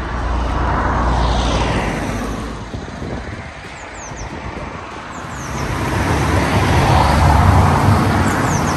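Road traffic: a motor vehicle passes about a second in, and another builds to a louder pass near the end, each rising and fading away.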